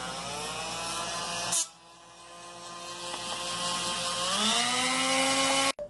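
Dremel rotary tool with a polishing wheel running on the watch lens, its motor whine rising in pitch as it speeds up. It stops abruptly, starts again and climbs in pitch once more, then cuts off suddenly near the end.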